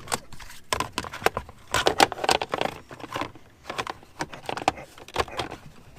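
Irregular clicks, taps and rustling of hands working plastic interior trim and wiring in a car's centre console.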